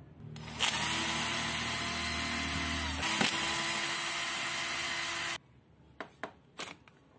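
Power screwdriver running for about five seconds as it drives the screw in the angle grinder's plastic rear end cap. The motor's pitch drops slightly about halfway through, and the sound cuts off abruptly. Three light plastic clicks follow as the end cap is worked loose.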